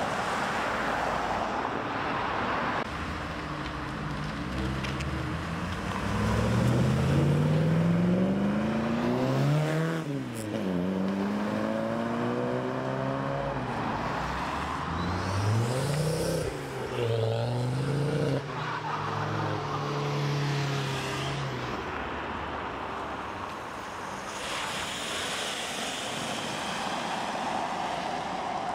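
Cars accelerating away one after another, their engine notes climbing in pitch through the gears and dropping back twice at gear changes. Tyres hiss on wet tarmac at the start and near the end.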